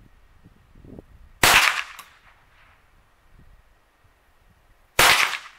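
Two shots from a .22 LR takedown rifle, about three and a half seconds apart, each a sharp crack with a short trailing echo.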